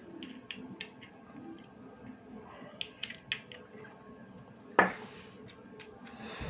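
Small metal clicks and taps from handling a Zippo lighter during a flint change, with one sharper, louder click about three-quarters of the way through.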